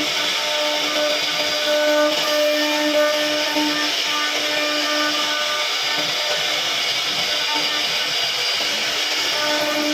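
CNC router spindle cutting wood: a steady machine noise with a held hum that fades about halfway through and comes back near the end.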